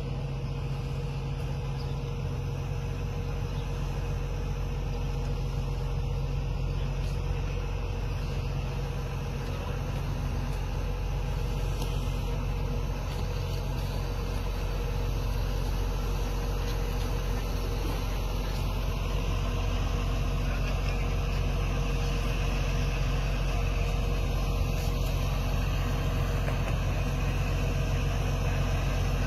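An engine running steadily: a low, even drone with a few constant hum tones, growing a little louder in the second half.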